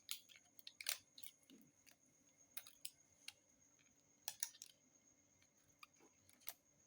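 Faint, scattered small clicks and taps of a smartphone and its parts being handled during a screen repair, about a dozen irregular ticks.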